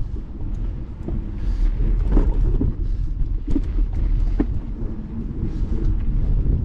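Strong wind gusting and buffeting the microphone, a steady low rumble that swells and dips, with a few faint knocks scattered through it.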